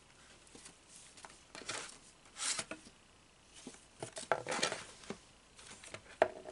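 Paper coupons and plastic sample packets being handled: rustling and crinkling in a few short bursts, with light taps and clicks between.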